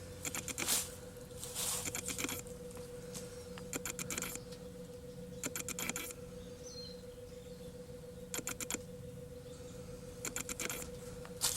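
Hand tools working on metal tractor parts: short bursts of rapid metallic clicks and clinks every one to two seconds, over a steady low hum.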